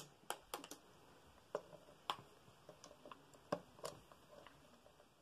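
Plastic Lego pieces and minifigures clicking and tapping as they are handled and set down, about a dozen light clicks that thin out near the end.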